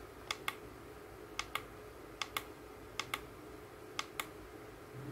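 A small plastic button pressed repeatedly: five pairs of sharp press-and-release clicks, about one pair a second, over a faint steady hum. This is the channel-search button on FPV goggles being stepped through channels to find the drone's video signal.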